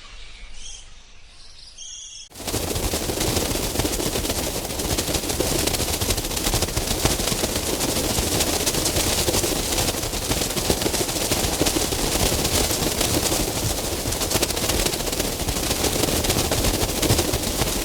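Bat calls: a few faint high chirps, then a sudden switch to a loud, dense, rapid rattle of clicks that carries on steadily.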